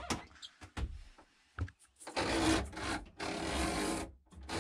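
Metal spiral shower hose of a pull-out shower head rasping as it is drawn out through its fitting and slides back, in two long strokes after a few light clicks of handling. It retracts freely, without sticking.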